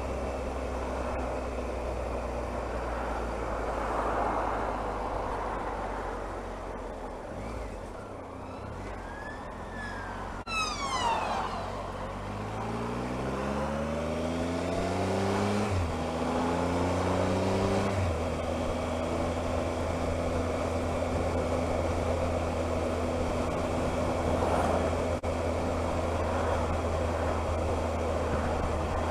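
Triumph Explorer motorcycle engine running under steady wind noise. An ambulance siren wails briefly a little before the middle. The engine then revs up through two gear changes and holds steady at higher revs.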